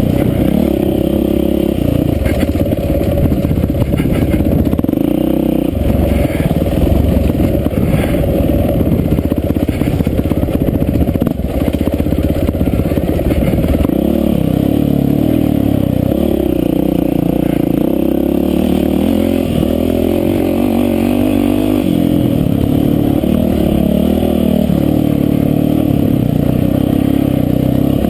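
Yamaha WR450F dirt bike's single-cylinder four-stroke engine revving up and down under load as it is ridden hard, with a few sharp clacks.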